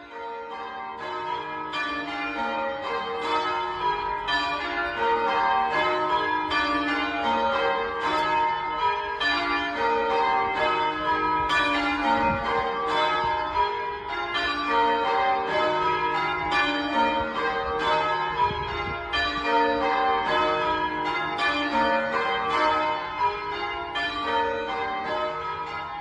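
Carlisle Cathedral's church bells being rung in changes: a rapid, even stream of overlapping bell strokes in shifting order, growing louder over the first few seconds and then steady.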